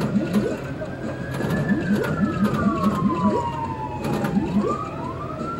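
Monopoly pinball machine in play, sounding its electronic effects: a slow gliding tone that rises, falls for a few seconds and rises again, over a quick run of short rising chirps and a few clicks.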